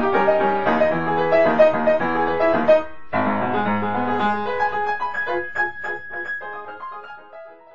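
Background piano music, a melody over chords. It breaks off briefly about three seconds in, resumes more sparsely, and fades out at the end.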